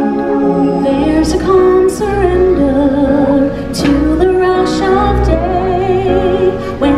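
Live stage-show music: a woman sings long, wavering held notes over a full backing track with a pulsing bass and a few sharp percussion hits.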